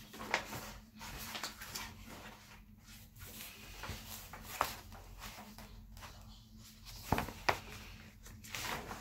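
Soft rustling and handling noises, broken by a few sharp clicks or knocks, two of them close together near the end.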